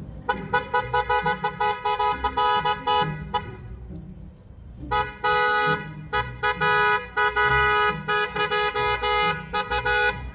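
Car horns honking in fast repeated toots, celebratory honking from cars in a slow drive-by parade. Two spells of several seconds each, with a short break of about a second and a half between them.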